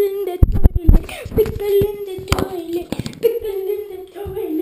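A child singing a wordless tune in long, wavering held notes, with a few sharp knocks from the camera being handled in the first second.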